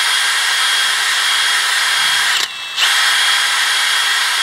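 Cordless drill running at speed with a thin metal rod spinning in its chuck, a steady high whine over the motor noise. It stops briefly about two and a half seconds in, then spins back up.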